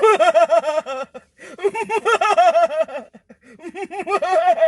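High-pitched laughing in three quick bouts, each a rapid string of 'ha' pulses, with short breaks between them.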